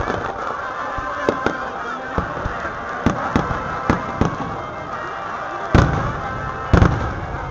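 Aerial firework shells bursting: a run of sharp bangs at irregular intervals, the two loudest and deepest near the end.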